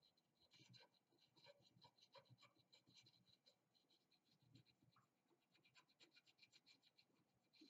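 Faint, quick scratching strokes of a fine sanding stone rubbed back and forth over the lacquered repair lines on a glazed porcelain bowl, several strokes a second.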